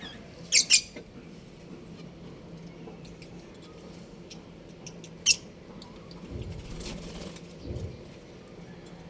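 Budgerigars chirping: a quick pair of sharp, high chirps about half a second in and a single chirp near the middle, with faint scattered twitters between. A dull low rumble comes in the second half.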